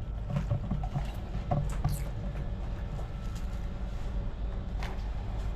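Steady low drone of the ship's engines, with scattered light clicks and rustles of styrofoam food boxes being handled.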